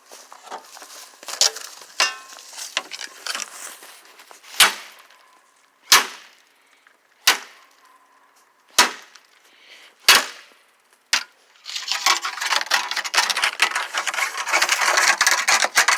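An old fishing pole whacking a microwave: a series of sharp single strikes, about one every second and a half, then a dense rapid clattering for the last few seconds.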